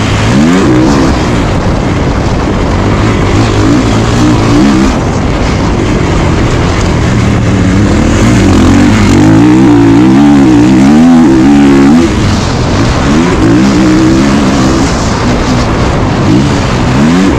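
Kawasaki KX450 single-cylinder four-stroke motocross engine at race pace, its pitch rising and falling again and again as the throttle is worked. There is a steep climb in revs at the start and another near the end.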